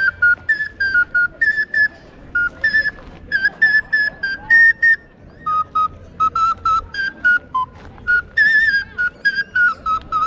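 A small handheld whistle blown in quick runs of short notes, hopping between a few pitches, some notes warbling.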